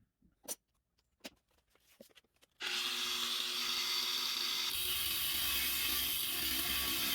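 A few light knocks and clicks of handling, then about two and a half seconds in a power tool starts abruptly and runs steadily with a loud, even hiss.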